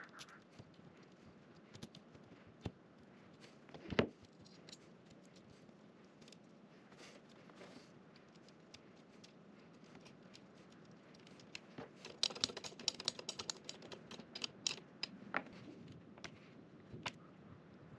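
Small clicks, taps and rattles of metal and plastic parts being handled while an aluminium laser-engraver frame is assembled, with one louder knock about four seconds in and a run of rapid clicking over a few seconds in the second half.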